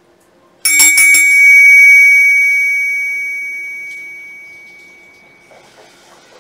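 Meditation bell struck about half a second in, ringing with a high, clear tone that fades away over about four seconds, marking the end of the sitting.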